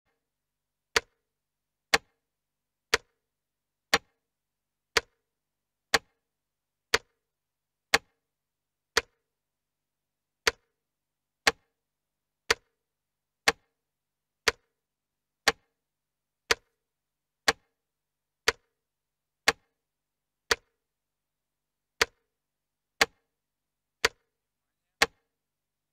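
Clock ticking: one sharp tick about every second, with a slightly longer gap twice.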